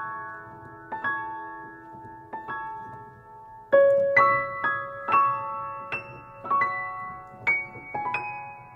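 Background music: a melody of keyboard notes, each struck and left to ring, a new note or chord every half second or so, louder and higher from about four seconds in.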